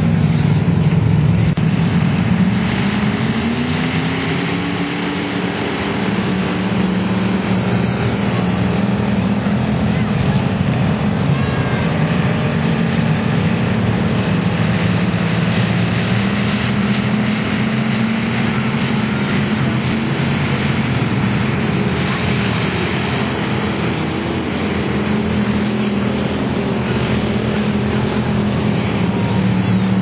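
Several dirt-track stock car engines running hard in a race, a continuous loud drone whose pitch rises and falls as cars accelerate and go by.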